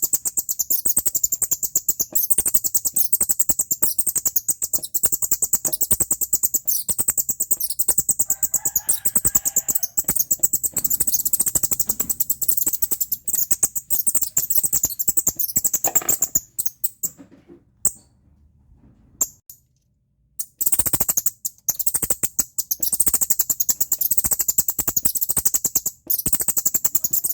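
Rapid, high-pitched chirping squeaks repeating many times a second, played as a sound to drive away rats and house shrews. It falls silent for a few seconds about two-thirds of the way through, then starts again.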